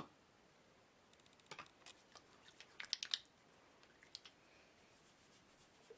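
Faint, soft squishing and crackling of fingers massaging a conditioner and sesame-oil mixture through hair and into the scalp, in a few brief scattered clusters, the clearest about three seconds in.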